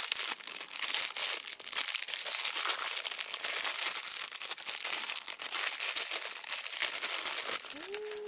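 Plastic packaging crinkling and tearing as it is opened by hand: a dense crackle full of small sharp snaps that keeps going without a break.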